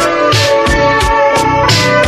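Vaporwave music: sustained melodic tones over a steady drum beat, with a snare hit roughly every second.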